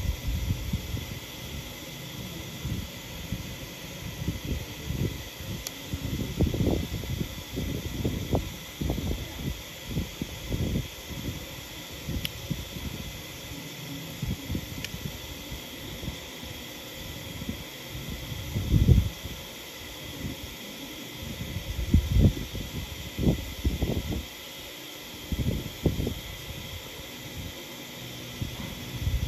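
Steady background hiss with irregular low thumps and rumbles, a few louder ones in the second half.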